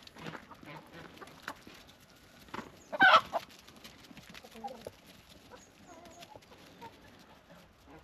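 Chickens clucking, with one loud, short squawk about three seconds in.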